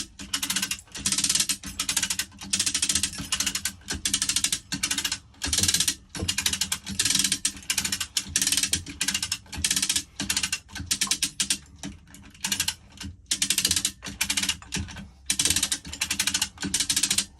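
Ratchet of a hoist being worked in repeated strokes, each a quick run of rapid clicks about once a second, lifting a boat's engine.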